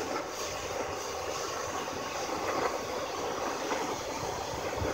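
Steady whooshing rush of a hair dryer blowing air into a charcoal forge.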